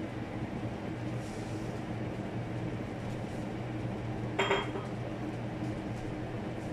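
Range hood fan running steadily on its high setting, with one short ringing clink of dishes about four and a half seconds in.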